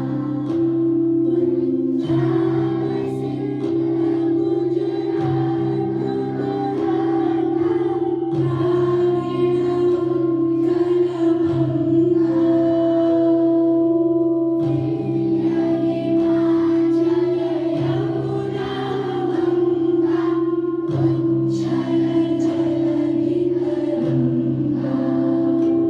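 A group singing a song together over a sustained instrumental accompaniment, whose low notes change about every three seconds.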